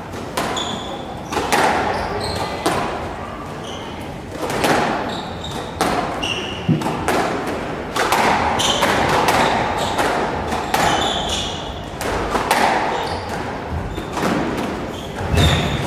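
Squash rally: the ball cracks off racquets and smacks the front and side walls about once a second, echoing in the court, with short squeaks of court shoes on the wooden floor between the hits.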